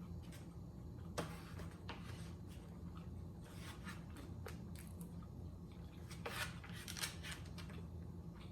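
Eating sounds: chewing of takeout food, with scattered clicks and scrapes of a utensil in a takeout container, over a steady low hum.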